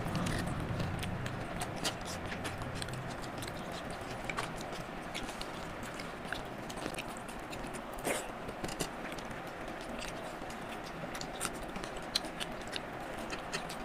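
Close-up eating sounds of two people eating soft khichuri by hand: fingers mixing and scooping the rice on steel plates, with chewing and scattered small wet clicks and smacks throughout.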